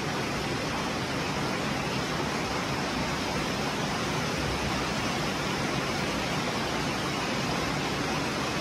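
A steady, even hiss that does not change, with no distinct sounds standing out in it.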